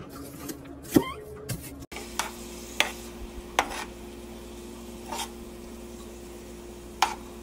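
Diced onions sizzling in olive oil in a frying pan while a spatula stirs them, knocking and scraping against the pan about five times, over a steady low hum. The frying starts about two seconds in, after a single sharp knock.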